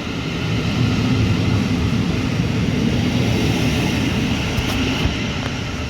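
Steady low rumble of a passing vehicle.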